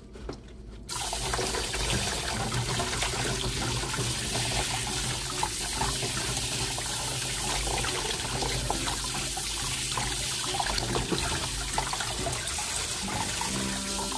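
Kitchen sink faucet running, its spray splashing over a wet kitten held under it and down into a plastic basin; the water comes on about a second in and runs steadily.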